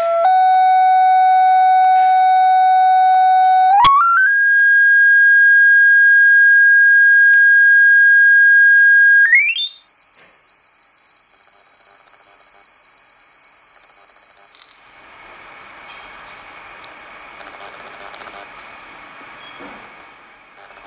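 Steady sine-wave test tone played from a Samsung smartphone's signal-generator app through its small speaker, jumping higher in pitch three times: up about four seconds in, again about nine seconds in, and to a very high whistle near the end. It turns quieter about two-thirds of the way through.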